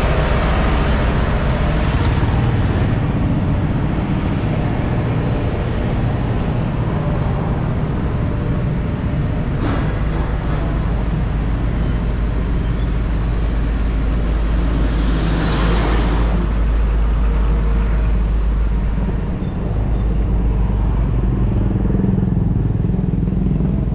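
Street traffic: motor vehicles running with a steady low rumble, one passing close about two-thirds of the way through.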